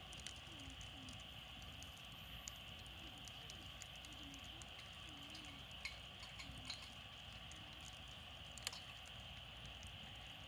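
Wood campfire crackling faintly: scattered sharp ticks and pops, one louder pop near the end, over a steady background hiss.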